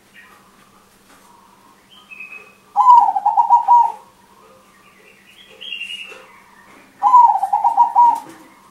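Zebra dove (perkutut, a 'crossing' hybrid) singing loudly: two bursts of rapid staccato cooing, each about a second long, about four seconds apart.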